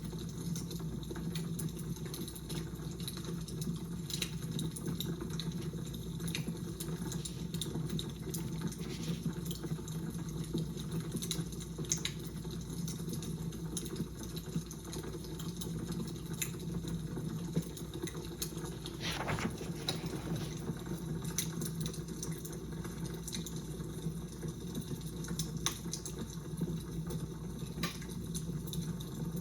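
Fire crackling: a steady low rush with scattered sharp pops, and one longer, stronger crackle about two-thirds of the way through.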